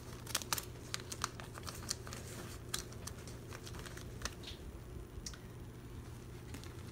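Clear plastic binder sleeve crinkling and clicking as a photocard is slid into its pocket and the page is pressed flat: a run of quick small clicks, thickest in the first three seconds.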